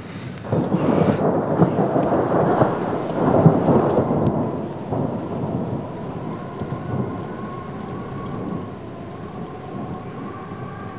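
A loud rumbling noise swells up about half a second in and dies down after about five seconds. A steady high droning tone fades in during the second half.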